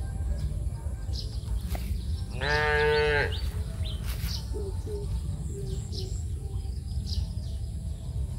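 A farm animal calls once, a drawn-out cry lasting about a second, beginning about two and a half seconds in, over a steady low rumble.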